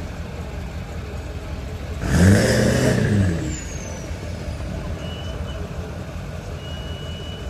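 Street traffic rumbling past, with one vehicle's engine revving up and back down as it passes close, about two seconds in, the loudest moment.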